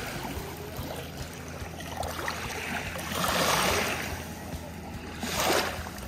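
Water rushing and splashing, surging louder about three seconds in and again briefly near the end.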